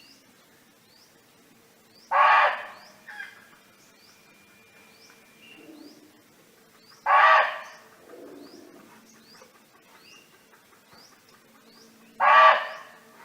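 Barking deer (red muntjac) giving single short barks, three of them about five seconds apart. Small high rising chirps repeat faintly behind them, about one a second.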